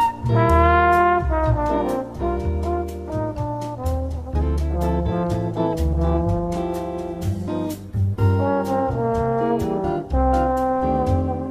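Jazz-style background music, with brass horns carrying the melody over a steady drum beat.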